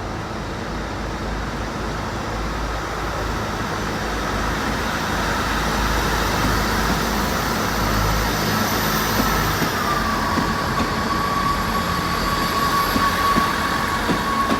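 South Western Railway Class 159 diesel multiple unit pulling out under power, its diesel engines running and slowly growing louder. A steady high whine steps down slightly in pitch about ten seconds in and then holds.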